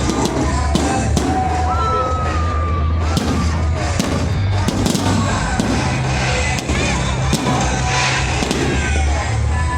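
Fireworks popping and crackling, many sharp bangs in quick succession, over loud music with a heavy bass line.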